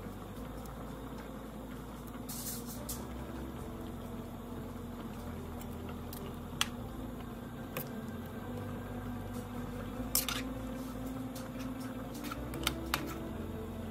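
Flour dumplings (spinners) going into a pot of bean stew and being pushed into the broth with a metal ladle: soft wet squishes and sloshing of the stew, with a few light clinks of the ladle against the pot.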